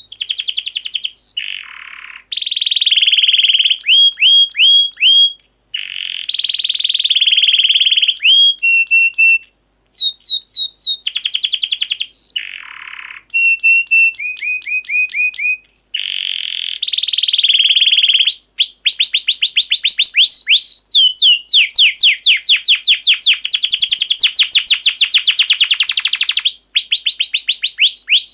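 Canary singing: phrases of clear, high-pitched whistled notes and fast downward-sweeping trills, with short breaks between phrases and a long rapid trill of repeated notes in the second half.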